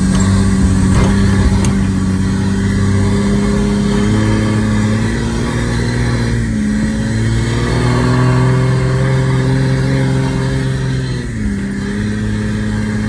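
Off-road 4x4 engine running steadily under throttle while driving, its pitch dropping briefly and recovering twice, about halfway through and near the end.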